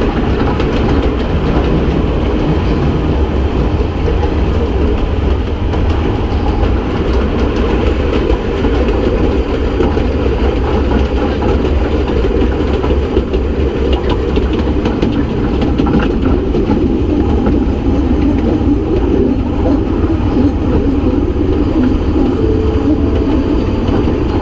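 Kurobe Gorge Railway narrow-gauge train running steadily along the track, heard from inside an open-sided passenger car: a continuous low wheel-and-rail rumble with faint scattered clicks.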